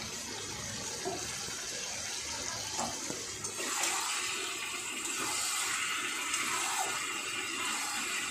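Chicken and masala sizzling in an aluminium kadai on a gas flame, a steady frying hiss that grows louder about three and a half seconds in as a spatula starts stirring the pieces. The masala is being fried down (kasha) until the oil separates.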